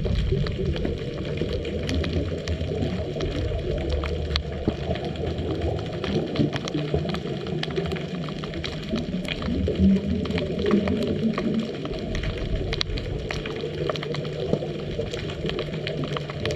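Underwater sound picked up by a diver's camera: a low, gurgling rumble of bubbles and water movement, swelling louder about ten seconds in, with faint scattered clicks throughout.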